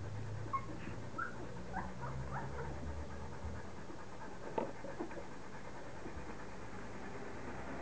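Newborn Belgian Malinois puppy giving a run of short, high squeaks over the first few seconds, with a single sharp tick about halfway through.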